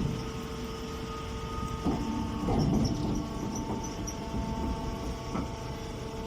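Grass baler machine running: a steady mechanical hum and rumble with a few short knocks, about two seconds in, near three seconds and past five seconds.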